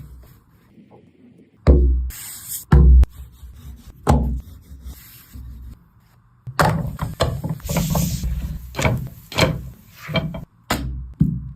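Cooking utensils knocking and scraping during food preparation: a few separate knocks, then a fast run of clattering strikes and scraping, over background music.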